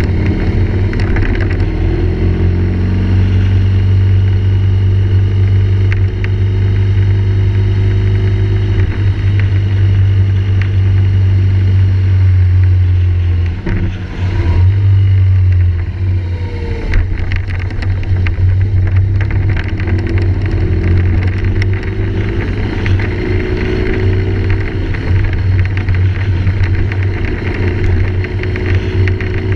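Rattling picked up by a GoPro Hero3+ camera in its housing, many small clicks running over the steady low hum of a moving vehicle whose pitch drifts up and down.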